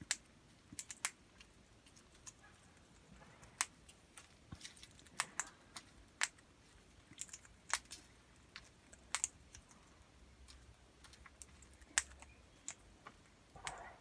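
Australian king parrot cracking seed in its beak: sharp, irregular clicks, about one a second.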